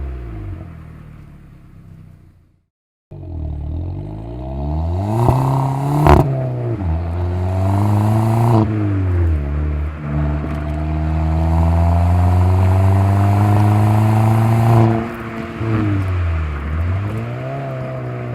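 VW Polo 6R 1.2 TSI turbocharged four-cylinder petrol engine, breathing through a resonator-delete exhaust with a GTI muffler, accelerating through the gears. The revs climb, drop at each upshift and climb again, ending in one long, slower pull. There is a single sharp pop about six seconds in, and a short silent break near the start.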